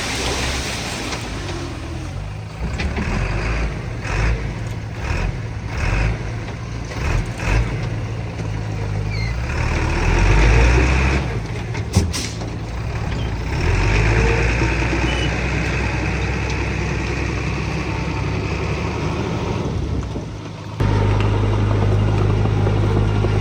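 Diesel engines of heavy earthmoving machinery running under varying load, their level and pitch rising and falling, with a sharp knock about twelve seconds in. Near the end the sound changes abruptly to a steadier, deeper engine sound.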